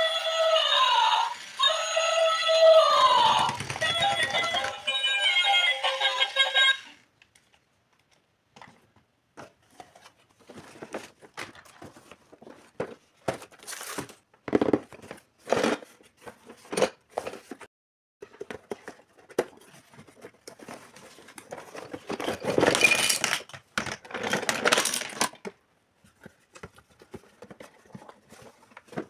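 Background music with a sung melody for the first several seconds, cutting off suddenly. Then small scattered clicks and crinkling of packaging as a miniature toy kitchen set is unpacked, with louder rustling for a few seconds near the end.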